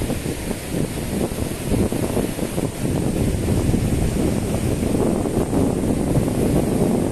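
Wind buffeting the microphone over the wash of small surf breaking on a sandy beach, growing a little stronger about three seconds in.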